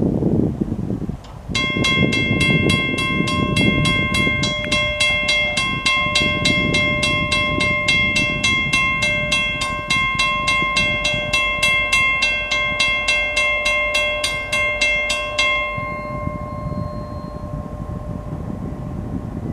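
Railroad grade-crossing warning bell ringing at about three strikes a second as the crossing lights flash and the gate arm comes down. It starts about a second and a half in and stops near the end, once the gate is down, leaving wind buffeting the microphone.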